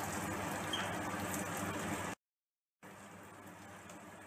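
Thick curry gravy simmering and bubbling in a metal kadhai as milk is poured into it. The sound drops out completely for a moment about two seconds in, then comes back quieter as the gravy is stirred with a wooden spatula.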